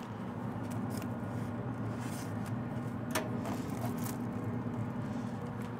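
Gloved hands lifting a foil-wrapped pork butt off a pellet smoker's grate: a few light scrapes and rustles, the sharpest about three seconds in, over a steady low hum.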